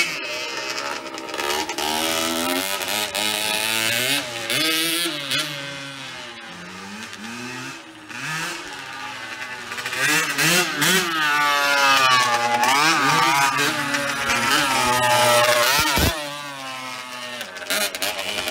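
Several small dirt bike engines revving up and easing off, their pitches rising and falling and overlapping one another.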